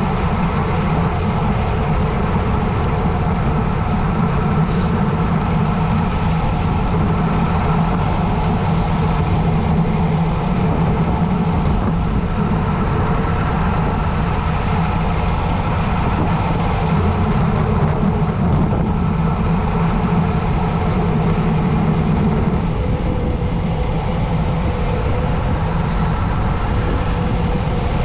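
Steady loud rush of wind on the camera microphone during a fast bicycle descent.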